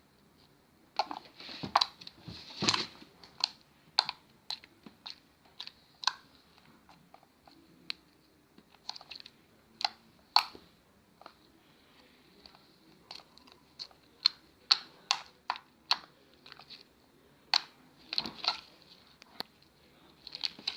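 Homemade slime squished and poked by hand, making irregular short clicks and pops.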